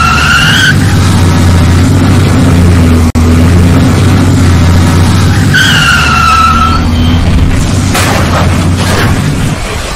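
Truck engine running loud and steady, with a short squeal at the start and again about six seconds in, and a brief break about three seconds in.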